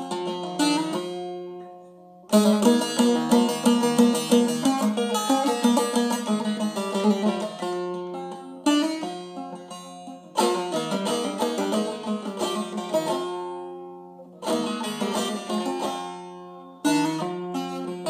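Instrumental break in a Zazaki folk song: a plucked string instrument plays quick runs of notes in several phrases that each die away, over a steady low drone.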